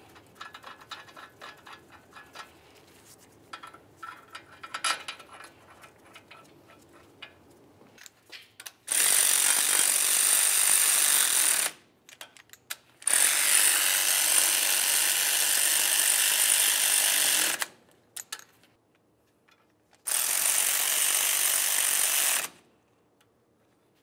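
Power ratchet running in three steady bursts of about three to four seconds each, snugging the three mounting bolts of a new front wheel bearing and hub assembly into the steering knuckle. Before that, faint light clicks of the bolts and tool being handled.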